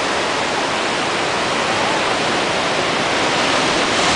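Heavy surf from hurricane swells breaking and churning as white water over a rocky shore: a steady, unbroken rush of water with no single wave standing out.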